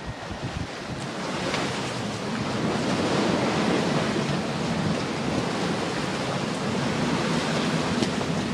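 Water rushing and splashing along the hull of a sailing yacht driving hard through waves under sail, mixed with wind on the microphone. The steady rushing grows louder about a second in.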